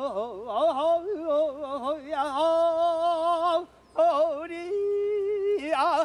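A male Korean traditional singer (sorikkun) singing solo in the southern Korean folk-song style, on drawn-out vocables with a wide, wavering vibrato and long held notes. He pauses for breath about three and a half seconds in.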